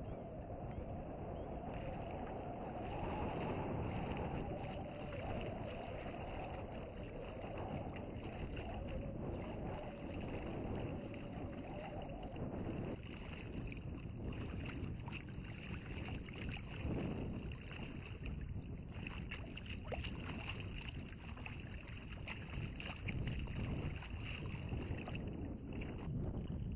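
Wind blowing across the microphone over open, rippling water, a steady rushing noise. A low wavering hum runs under it through the first half and cuts off suddenly about halfway.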